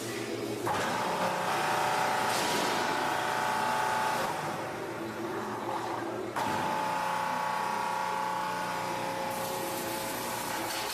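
Remanufactured refrigeration compressor running on the test stand: a steady mechanical hum with a whine. It starts about a second in, cuts off sharply about six seconds in and picks up again at once.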